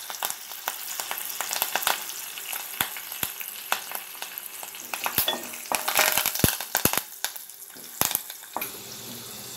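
Curry leaves, garlic and whole spices sizzling in hot oil for a tadka, with a spatula stirring and scraping the metal pan and scattered sharp crackles and clicks.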